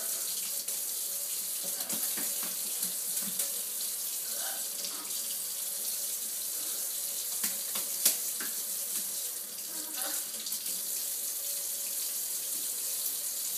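Kitchen faucet running steadily into a stainless steel sink, the stream splashing over a blue-and-gold macaw bathing under it. A single sharp click stands out about eight seconds in.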